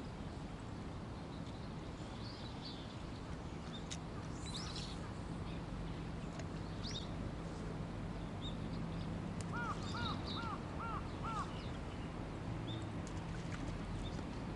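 Birds calling: a quick run of five short arched calls about ten seconds in, with scattered brief high chirps from small birds, over a steady low hum.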